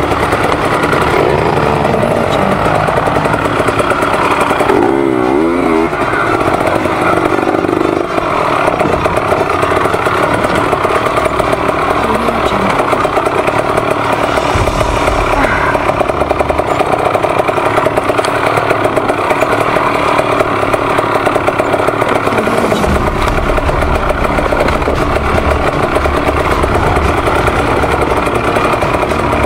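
Two-stroke KTM TPI enduro dirt bike engine running close up while riding a rough trail, the revs rising and falling with the throttle.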